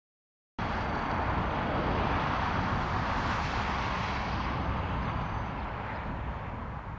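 Steady rushing rumble of a distant vehicle, starting suddenly about half a second in and slowly getting quieter.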